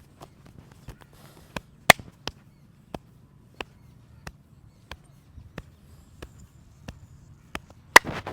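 Massage tapping: a hand striking the body in a steady rhythm of about three taps every two seconds. Two sharper, louder strikes land about two seconds in and near the end.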